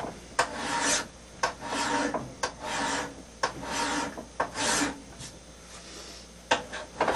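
Hand file pushed along the edge of a hand axe blade in slow rasping strokes, about one a second, with a short pause late on: finishing strokes to sharpen the edge.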